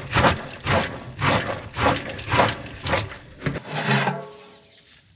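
Popped corn rattling and swishing inside a large covered aluminium pot as it is shaken about twice a second to coat it with mint powder and salt. Near the end the shaking stops and the metal lid scrapes and rings briefly as it is lifted.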